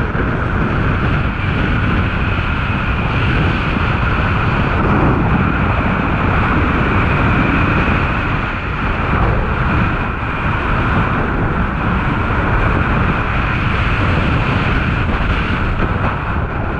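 Wind rushing over an action camera's microphone while skiing downhill at speed, mixed with the hiss of skis sliding on groomed snow; steady throughout.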